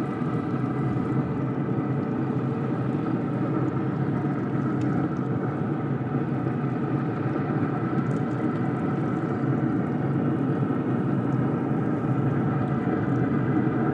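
Z Grills pellet grill running with its lid open: a steady fan hum and rush.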